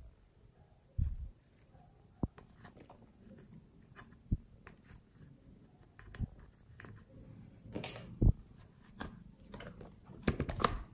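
Plastic tool scraping and picking at pressed eyeshadow in a makeup palette, a light scratchy sound broken by a few sharp clicks and taps. Near the end, a louder clatter as the palette case is handled.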